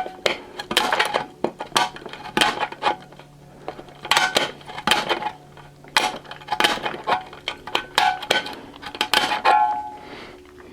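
Hand nibbler punching through the thin stainless steel of a utensil bin: a run of sharp, uneven metallic crunches, roughly one or two a second, several leaving the bin ringing briefly.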